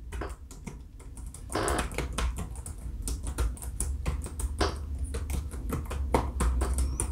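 Typing on a Samsung Notebook Flash laptop keyboard: a quick, uneven run of clicky keystrokes on its round keycaps.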